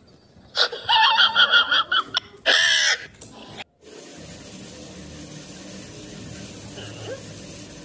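A loud burst of pulsed voice sounds for the first few seconds. Then, after a short break, a tap runs in a steady stream into a bathroom washbasin.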